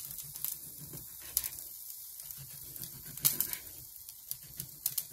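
Chef's knife slicing through a crisp-skinned seared duck breast, the blade tapping the wooden cutting board as each cut goes through: several sharp taps at irregular intervals.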